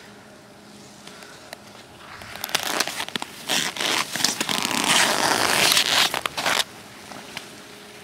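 Racing skis scraping over hard-packed snow as a racer passes close by. The scraping builds over a couple of seconds and cuts off sharply about two-thirds of the way through.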